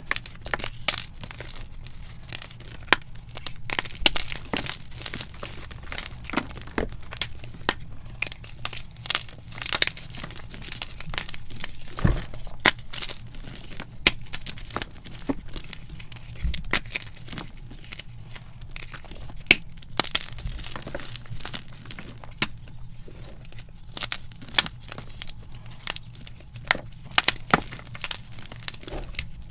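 Blocks of gym chalk being snapped and crushed by hand: irregular sharp cracks and dry crunching as the blocks break and the chunks crumble between the fingers, with a few louder snaps. A faint steady low hum runs underneath.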